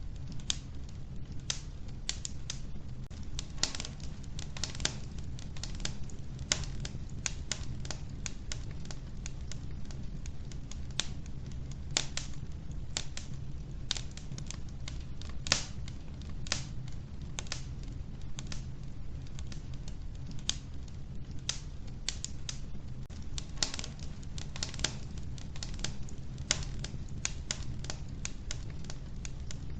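Wood fire crackling in an old wood-burning stove: irregular sharp pops and snaps, several a second, over a steady low rumble.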